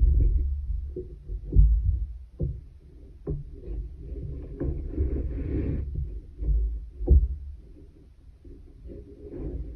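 Handling sounds of weaving on a wooden pin loom: a long metal weaving needle worked over and under the yarn, with irregular soft thumps and sharp clicks as the needle and hands knock against the wooden frame, and a brief rustle of yarn about five seconds in.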